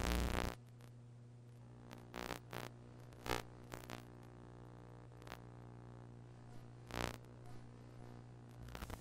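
Steady low electrical hum from VHS tape playback, broken by several short bursts of crackling static, the loudest right at the start and another about seven seconds in. It is deck noise over a stretch of tape with no recorded sound and a garbled, noisy picture.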